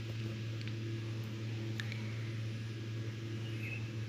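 Quiet steady low hum, with a few faint light ticks as a string of pearl beads is handled and pressed around the foot of a glass.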